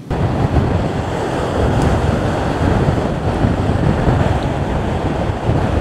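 Strong gusting wind buffeting the microphone over rough surf breaking on a pebble beach, a steady, loud rush heaviest in the low end.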